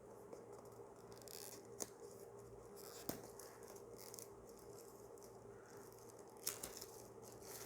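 Faint handling of a product box as its seal is peeled open: a few soft scratches and clicks over a low steady hum.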